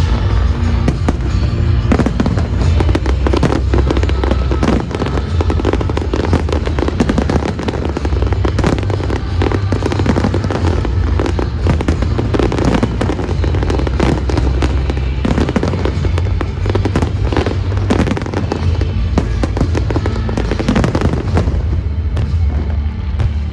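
Aerial fireworks firing in a dense, continuous barrage of bursts and crackles, over pyromusical soundtrack music with a steady deep bass. The bursts come thickest about two seconds in, around the middle, and again a few seconds before the end.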